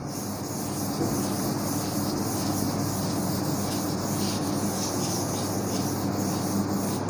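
A felt chalkboard duster scrubbing back and forth across a chalkboard, wiping off chalk in a steady run of strokes.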